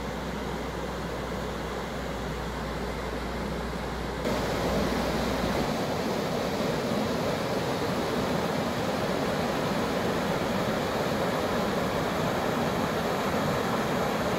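River water rushing over a weir and through white-water rapids: a steady rushing noise that grows louder and brighter about four seconds in. A low hum under it stops about a second later.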